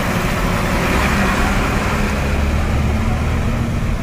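Ashok Leyland lorry's diesel engine running steadily as the loaded truck drives slowly past at close range, a low rumble with road noise.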